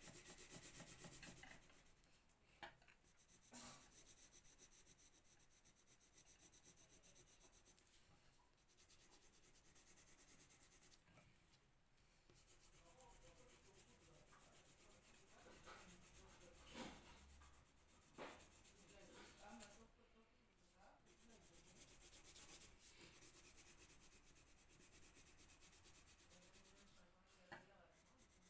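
Colour pencil shading on paper: faint scratchy strokes that come in runs of a few seconds, with short pauses between.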